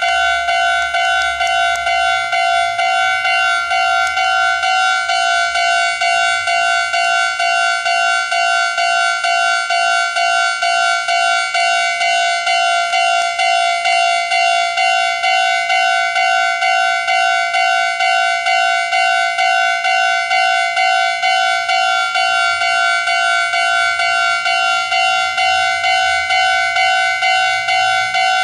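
Japanese railway level crossing's electronic warning bell ringing without a break, a pitched clang repeated about twice a second, signalling that a train is approaching or passing.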